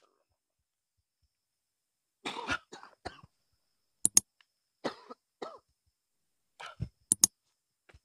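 A man coughing and clearing his throat in three short clusters, with a few sharp clicks about four seconds in and near the end.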